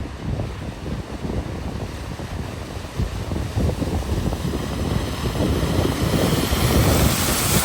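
Wind buffeting the microphone, with a hiss of water that swells near the end as a vehicle pushes through floodwater.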